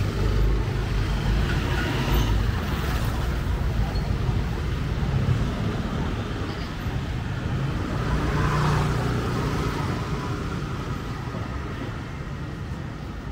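Street traffic on a narrow city street: a motorcycle's engine passes close by near the start, with engine rumble carrying on and easing off toward the end.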